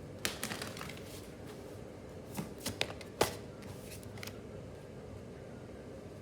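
Tarot cards being handled on a table: a few scattered light taps and clicks, the sharpest about three seconds in.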